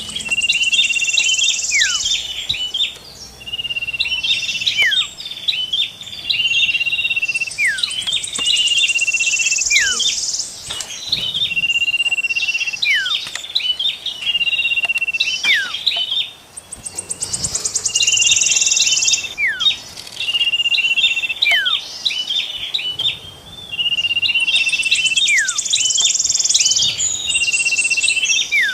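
Layered songs of small songbirds (common iora, prenjak and cikrak kutub) in a bird-lure mix. A steady held whistle, a falling whistle, sharp chips and a rapid high trill repeat in a cycle every four to five seconds.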